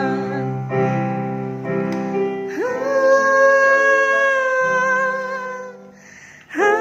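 A singer practising a ballad over keyboard accompaniment, holding long sung notes. After a few shorter notes, one note is held for about three seconds. The sound dips briefly near the end before the next note comes in. The voice is off-key from a flu and cough, as the singer herself says.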